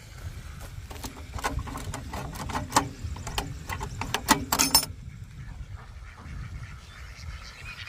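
Crank of a coin-operated duck and goose feed dispenser being turned: a run of ratcheting clicks starting about a second in, coming faster and louder near the end and stopping about five seconds in. It is a sound the campground ducks are conditioned to.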